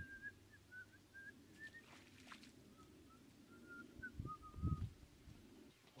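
A bird calling in a run of short, high chirps, with low thuds of footsteps on a dirt path; the loudest thud comes about four and a half seconds in.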